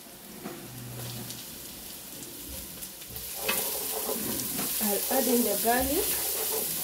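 Onions and freshly added grated garlic frying in hot oil in a pot, the sizzle growing louder about three and a half seconds in, with a wooden spoon stirring through the pan.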